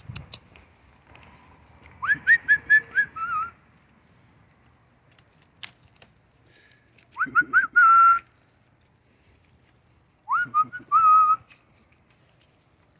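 A person whistling close to the microphone in three short bursts. Each burst starts with a quick upward sweep and then runs into several rapid chirpy notes.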